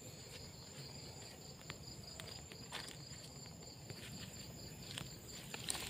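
Insects chirring steadily in the background, an even high drone, with faint rustling and a few soft clicks from someone moving through the brush.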